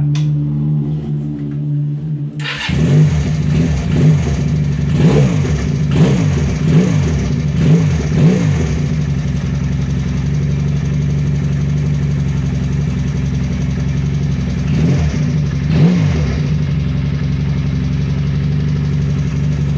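Benelli Patagonian Eagle's V-twin engine idling steadily, then blipped with the throttle in a quick run of rising-and-falling revs a few seconds in, with two more blips later. It runs evenly on both cylinders with its new spark plugs, with no misfire.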